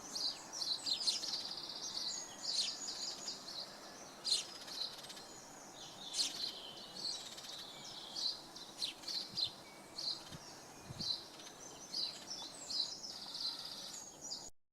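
Small songbirds singing and chirping in quick, high, overlapping phrases over a steady rush of running water from a beck. The sound cuts off suddenly near the end.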